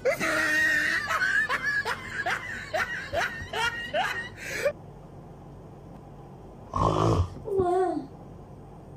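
A person laughing in short, rising, squeaky bursts for about four and a half seconds, then a loud put-on snore about seven seconds in, followed by a short falling vocal sound.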